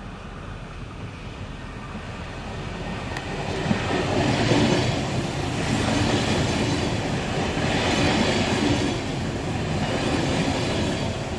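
ICE high-speed train rolling through the station: wheel-on-rail noise grows louder over the first few seconds, then holds as a steady rumble with a swell every couple of seconds as the cars go by.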